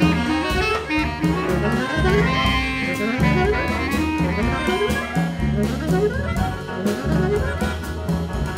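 Small jazz ensemble playing: alto saxophone and bass clarinet lines over a repeating low bass figure and drums.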